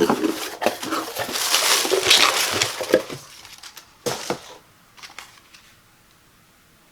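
Product packaging being handled and opened, crinkling and crackling with many small clicks for about three seconds, then a short rustle about four seconds in and a few light clicks.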